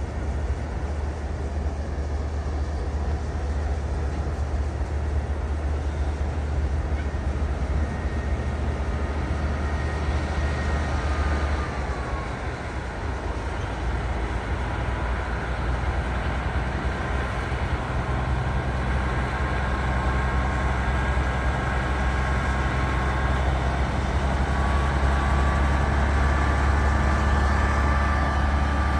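Western New York & Pennsylvania diesel locomotives running, a deep steady engine rumble with a thin high whine that falls in pitch about twelve seconds in and climbs back near the end.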